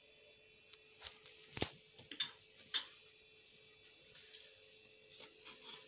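A handful of short light clicks and taps from kitchen utensils on a steel plate, a metal spoon and bread slices being handled. The clicks are loudest between about one and three seconds in.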